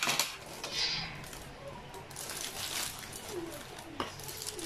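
Aluminium foil crinkling and tearing as it is pried open with a metal fork, with sharp clinks of the fork against a ceramic plate at the start and again about four seconds in.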